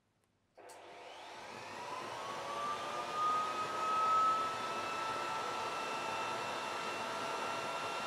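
Electric handheld air blower switched on at its lowest power setting: a click about half a second in, then its motor spins up with a rising whine and runs steadily, blowing air.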